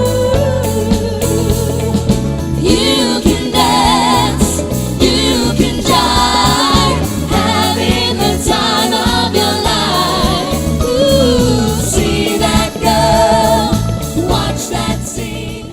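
Band music with singing: several voices hold wavering notes over a steady bass and drum backing. The music drops away right at the end.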